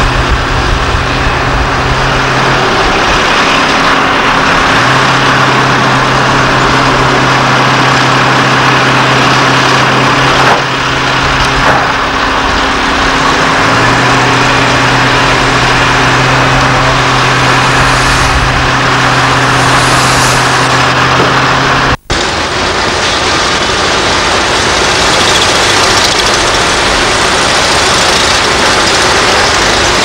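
Heavy construction machinery running steadily: cable excavators' engines giving a continuous loud noise, with a low hum that cuts out and comes back a few times. A brief dropout about 22 seconds in.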